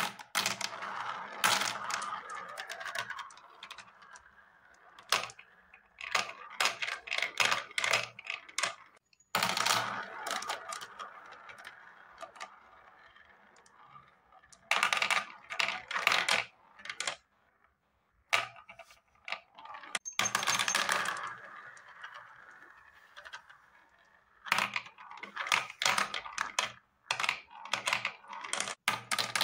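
Small balls rolling around the plastic spiral funnel of a marble run toy and dropping through its centre hole. The sound comes in repeated rounds: a steady rolling whirr, then bursts of rapid clicking and clattering as the balls hit the track and each other.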